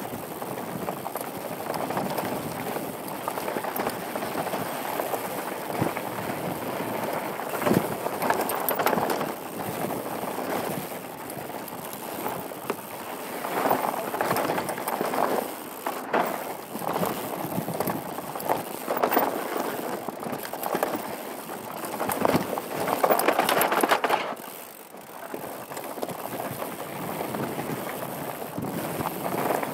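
Downhill mountain bike ridden fast over a rocky, gravelly singletrack: tyres rolling over loose rock and dirt in a steady rush that swells and fades, with sharp knocks from rock hits scattered through it.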